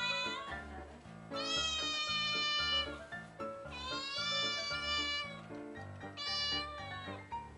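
A cat meowing: three long, drawn-out meows, the middle one the longest, over background music with a steady low beat.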